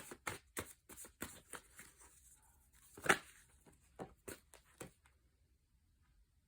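A deck of tarot cards being shuffled by hand: a run of quick, irregular card taps and snaps that stops about five seconds in.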